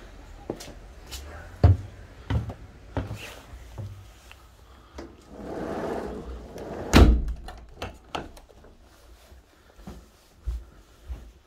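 Footsteps knocking on a hard floor. About five seconds in, a sliding glass door rumbles along its track for a second or so, then shuts with a loud thud.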